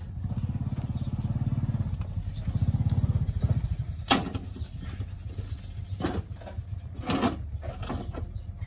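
A small engine running with a rapid pulsing beat, swelling twice over the first three seconds and then fading away. A few short, sharp noises follow in the second half.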